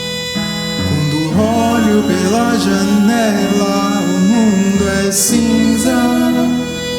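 Live band music: sustained chords under a melody line that glides up and down in pitch, with a brief crash about five seconds in.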